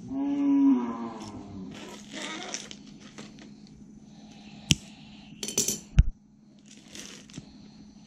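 A held, low-pitched call in the first second that slides down at its end. Then a sharp click a little before five seconds, and a quick run of cracks ending in a heavy thud near six seconds: steel pincers snipping at the stems of a salak-stem bird trap and then set down on the tile floor.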